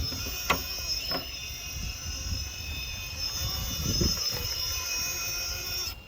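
High, steady electric whine of an Axial Basecamp RC rock crawler's Holmes Hobbies 1400kv Revolver brushless motor under way, over a low rumble, with a sharp knock about half a second in and another just after a second.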